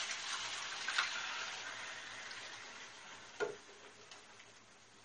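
Sauce poured into a hot frying pan of chicken, sizzling, the sizzle loudest about a second in and dying down. A single sharp clink about three and a half seconds in.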